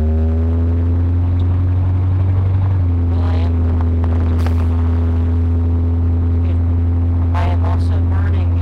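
A 1977 Ford Ranchero GT's 351 Windsor V8 running steadily at constant revs, with a slight drop in pitch about three seconds in.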